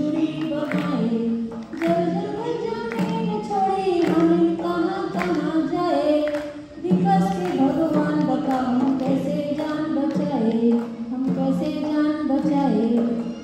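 A voice singing a melody with musical accompaniment, pausing briefly twice.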